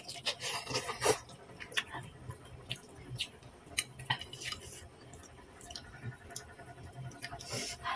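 A person chewing a mouthful of noodles close to the microphone, with irregular wet mouth smacks and clicks. Their loudest stretch is in the first second or so.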